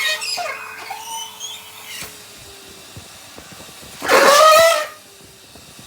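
Henry vacuum cleaner choking on pieces of rubber glove, the rubber squealing and honking in the nozzle and hose, with a loud squeal about four seconds in.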